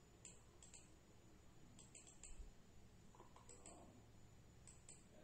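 Computer mouse buttons clicking faintly, about a dozen short clicks, many in quick pairs, over a low room hum.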